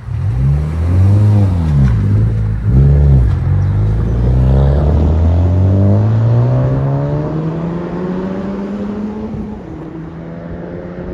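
Honda Civic Type R's turbocharged four-cylinder engine through a Remark Ti-spec cat-back exhaust: two short revs, then a long steady climb in pitch for about five seconds that levels off near the end.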